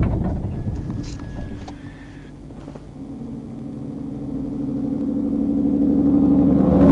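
A diesel semi truck approaches from ahead, its engine hum and tyre noise growing steadily louder over about four seconds and peaking as it passes near the end. Before that, low road rumble dies away over the first two seconds as the patrol car comes to a stop.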